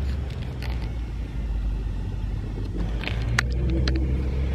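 A steady low rumble, with a few light taps on the glass of a sliding patio door about three seconds in.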